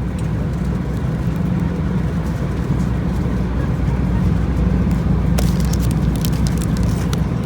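Steady low rumble of an Airbus A319's engines and airflow heard inside the passenger cabin in flight, with a short run of faint clicks about five seconds in.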